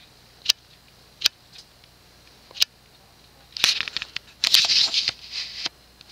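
Handling noise: three sharp clicks spread over the first few seconds, then two bursts of rustling and scraping in the second half.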